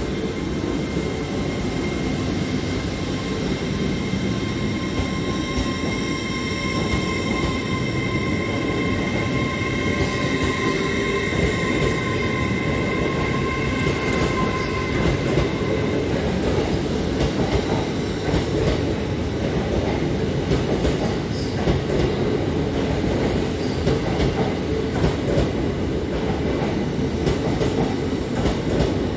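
LNER Class 801 Azuma electric train moving along the platform. A steady electric whine from its traction equipment is heard for about the first half, then fades. Rumble and repeated clicks of the wheels over rail joints carry on to the end.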